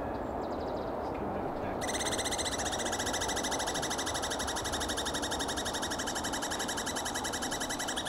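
Douglas squirrel giving its long, rapid, trilling rattle call, a territorial warning at a rival, starting about two seconds in and carrying on without a break.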